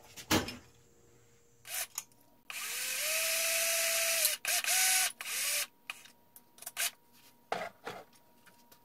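Cordless drill drilling into an aluminium bar in two runs, about two seconds and then about a second, its motor pitch rising as it spins up. A sharp knock comes just before, and two more knocks follow near the end.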